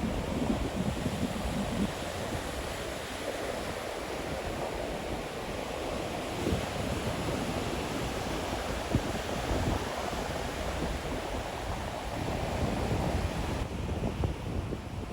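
Surf washing onto a beach, mixed with wind rumbling on the microphone.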